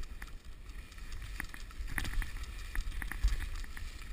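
Skis sliding over wet snow, heard from a camera worn by a moving skier, with a low wind rumble on the microphone and scattered sharp clicks.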